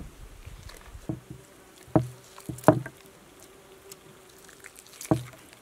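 Raw whole chicken knocked and pressed against a wooden cutting board: a few dull thuds, the loudest about two and a half seconds in. A buzzing insect hums steadily underneath from about a second in.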